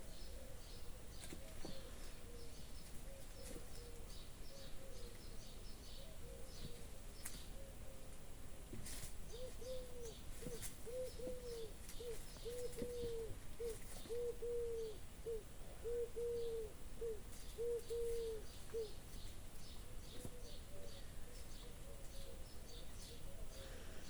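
A bird hoots a long run of about a dozen low, evenly spaced notes from about nine to nineteen seconds in, while small birds chirp high and thin throughout.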